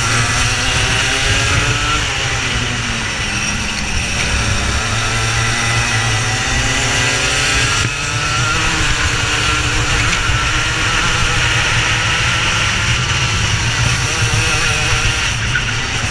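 Racing kart engine running hard on track, its pitch climbing and dropping again and again as it accelerates down the straights and slows for corners.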